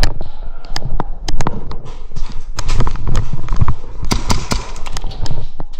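Airsoft gunfire: irregular sharp cracks and snaps, with a quick run of several about four seconds in.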